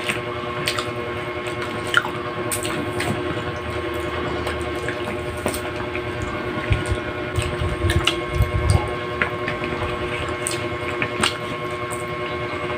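Eating sounds close to the microphone: scattered short clicks and smacks of chewing and fingers picking food, with a few dull low thumps around the middle, over a steady machine hum with several fixed tones.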